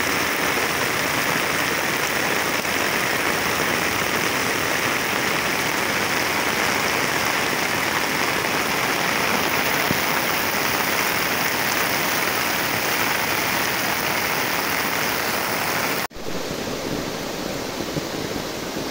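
Heavy rain and muddy floodwater rushing across a road, a steady, even rush of water noise. About 16 seconds in it cuts off abruptly to a slightly quieter, similar rush of runoff cascading down a rocky cliff face.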